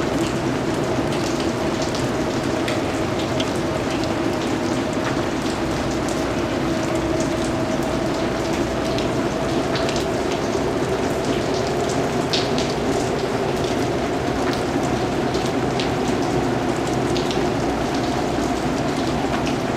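Steady rain falling on hard surfaces in an alley, an even, continuous patter. Scattered sharper drops tick over it, one standing out about twelve seconds in.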